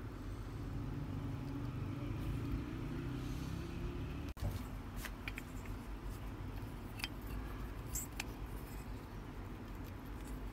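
Steady low rumble with a few light clicks and ticks in the second half, as the bulb holder's wires are handled against the terminals of a small sealed lead-acid battery. The sound breaks off briefly about four seconds in.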